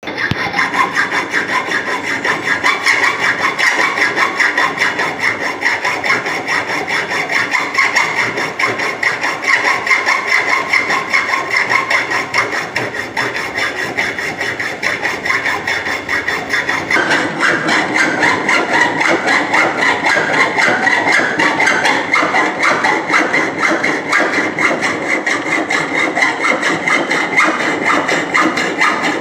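A hand tool working a steel pipe clamped in a pipe vise, making a steady, rhythmic metal-on-metal rasping. The strokes grow more distinct about two-thirds of the way through.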